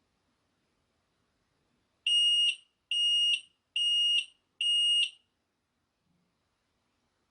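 Carbon monoxide alarm sounding four high-pitched beeps in quick succession, each about half a second long, starting about two seconds in. This is the four-beep pattern that signals carbon monoxide.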